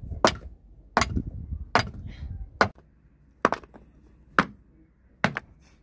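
Chopping: seven sharp blows, a little under a second apart.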